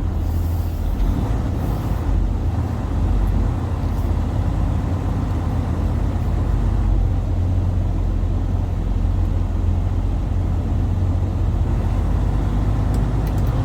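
2017 Freightliner semi truck's diesel engine droning steadily, heard from inside the cab as the truck is driven slowly around a lot.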